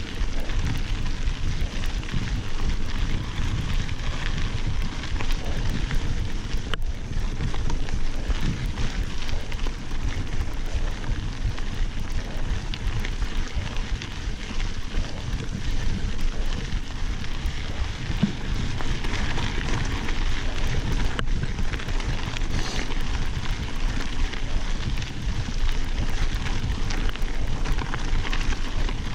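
Mountain bike tyres rolling over a gravel fire road with a steady crackle, and wind rumbling on the handlebar-mounted microphone.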